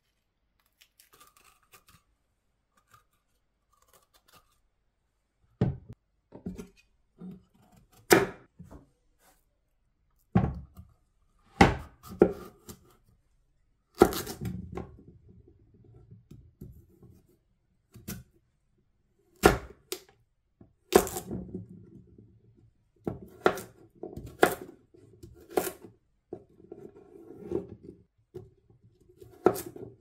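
Chef's knife cutting a raw Hokkaido pumpkin on a wooden cutting board: crunchy strokes through the firm, unpeeled flesh, each ending in a sharp knock of the blade on the board. The strokes come irregularly, starting about five seconds in and getting busier toward the end.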